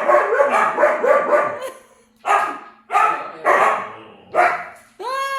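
Siberian husky barking in a series of short, sharp barks, then letting out a long, steady howl-like call about five seconds in.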